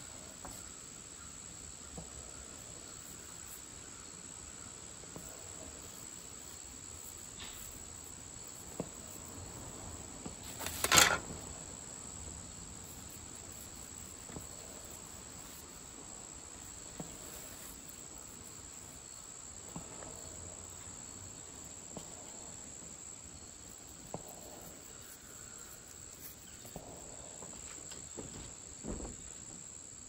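Crickets keeping up a steady high-pitched chirring. A brief loud noise cuts in about eleven seconds in.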